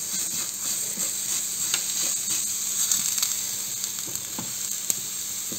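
Oiled eggplant slices sizzling steadily on the hot ridged plate of an electric contact grill, with a few faint clicks scattered through.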